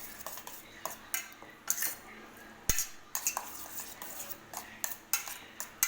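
Spoon stirring an egg, potato and vegetable mixture in a bowl, clinking irregularly against the sides, with one sharper knock near the middle.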